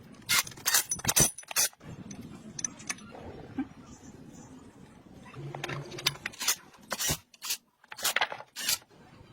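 A series of short, sharp clinks and knocks: a quick cluster of about five near the start, then another run of about five in the second half, over a faint low hum.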